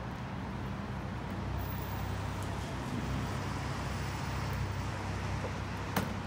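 Tour boat's engine running steadily, a low hum under an even hiss of wind and water, with one sharp click near the end.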